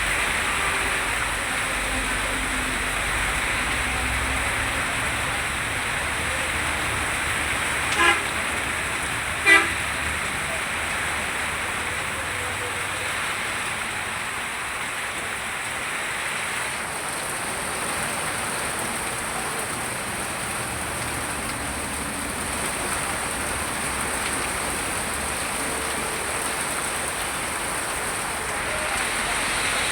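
Steady rain falling, with a vehicle horn giving two short toots about eight seconds in, a second and a half apart.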